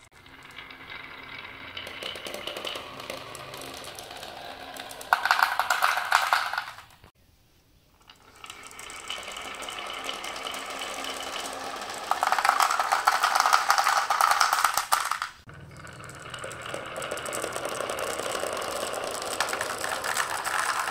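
A crowd of glass marbles rolling down a marble run, clattering and clicking against each other and against wavy wooden grooves and clear plastic channels and tubes. The rattle swells twice into louder stretches, and drops to a near-silent gap about a third of the way in.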